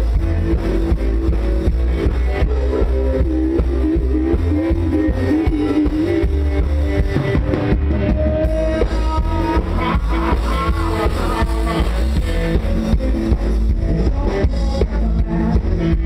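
Live country rock band playing, with drum kit and guitar over a heavy, steady low end.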